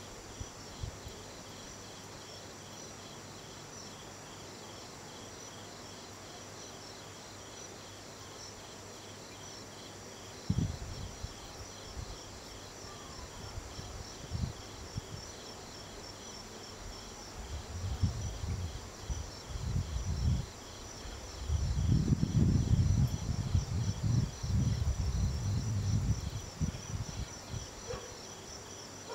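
Night insects chirping in a steady, evenly pulsed chorus. Irregular bursts of low rumbling come in about ten seconds in and grow louder in the second half, briefly louder than the insects.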